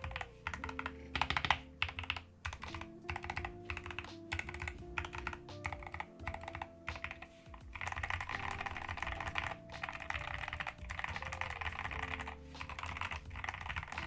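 Typing on a modded Endgame Gear KB65HE Hall-effect keyboard in an aluminium case, a sound test of its keys. Keystrokes click in quick runs, turning to fast, continuous typing past the middle.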